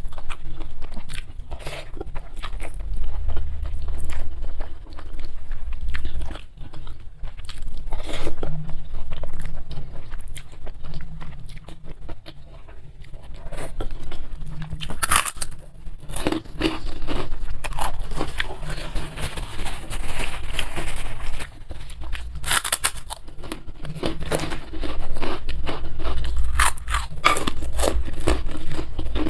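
Close-miked eating: chewing with repeated sharp, crunchy bites into crisp food such as kerupuk crackers or cucumber, in irregular clusters.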